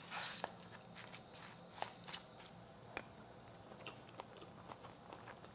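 Spoon mixing rice, vegetables and hot pepper paste in a paper bowl: faint soft squishing with a few scattered light clicks.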